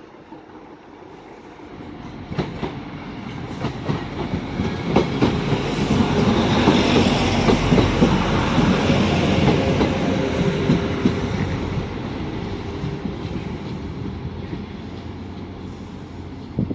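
Class 175 diesel multiple unit running past along the platform: its wheels click over the rail joints and its engines run, the sound building to its loudest about halfway through and then fading as it draws away.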